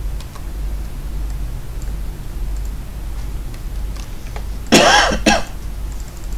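A person coughing once, briefly, about five seconds in, over a steady low hum.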